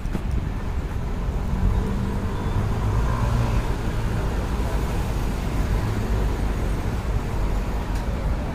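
Road traffic: motor vehicle engines running with a steady low rumble that swells a little about three seconds in.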